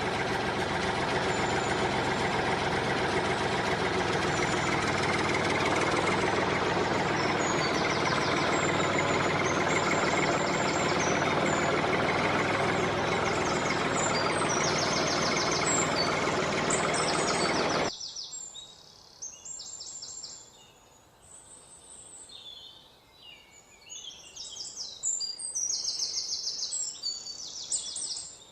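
A tractor-like engine running steadily, cutting off abruptly about 18 seconds in. Birds chirp in repeated short phrases over it and carry on alone after the engine stops.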